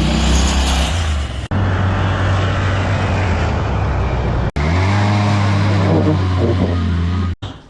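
Go-kart engine running and revving, heard in several short clips joined by abrupt cuts.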